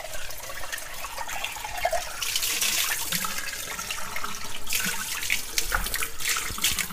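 Water running from a kitchen tap into a ceramic sink, splashing as a gutted chicken and its feet are rinsed under the stream. The spray gets brighter and louder for about a second starting around two seconds in, with a few short splashes later.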